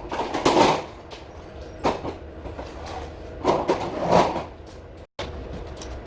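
Clatter and knocks of interior carpentry work on a ceiling job, in three bursts, over a steady low hum. The sound cuts out for a moment near the end.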